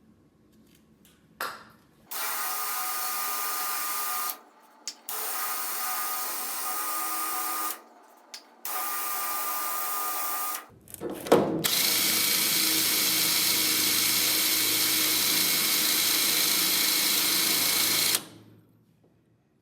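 Power drill run in three short bursts of two to three seconds, then one longer, louder run of about six seconds, drilling through a truck's door hinge into its bracket.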